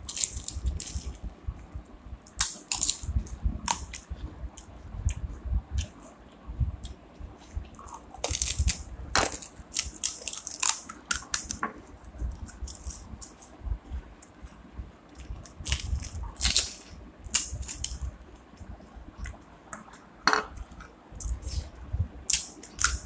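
Irregular cracks and crunches of crisp phuchka (pani puri) shells being broken open with the fingers and eaten, with close-up chewing and slurping.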